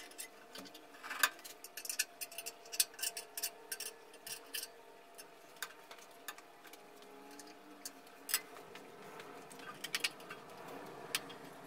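Irregular light metallic clicks and taps from fitting a bandsaw's table to its trunnions and working its fixing screws. They are frequent at first and thin out after the middle, with a short cluster near the end.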